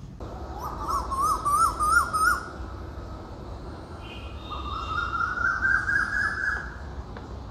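Birds calling: one bird repeats a short rising call note in two runs, the second run climbing steadily in pitch, while smaller birds chirp faintly higher up.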